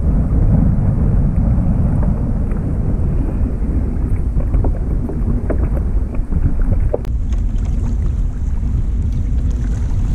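Wind rumbling on the microphone, with choppy water splashing against the plastic kayak hull and a few light knocks.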